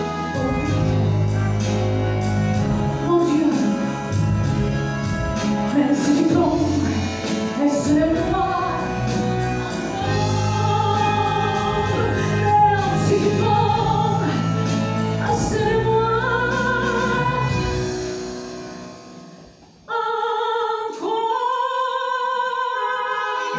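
A live band with a steady beat accompanies a woman singing a French chanson. Near the end the music fades away, then a group of voices comes in suddenly, singing long held notes with no bass beneath them.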